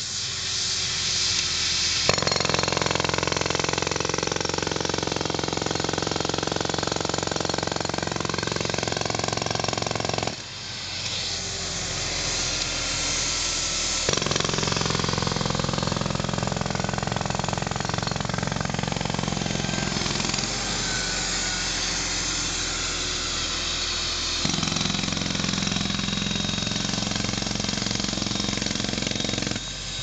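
Pneumatic jackhammer breaking up road asphalt, stopping for a few seconds about a third of the way in and then starting again. Under it runs the steady drone of the diesel-driven Airman PDS 175 portable air compressor that supplies the air.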